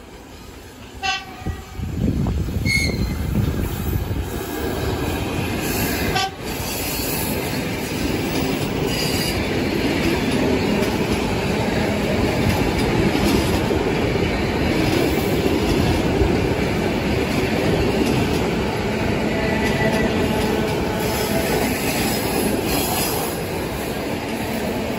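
ED4M electric multiple unit giving a few short horn toots in the first seconds, then passing close by with a loud, steady rumble of wheels and clatter over the rail joints.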